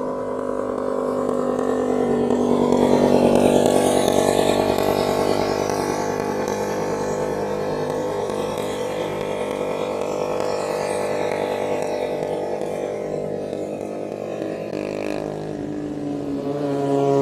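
Sport motorcycle engines running hard as the bikes pass through the bend. One swells to its loudest a few seconds in and then slowly drops in pitch and fades, and another comes up again near the end.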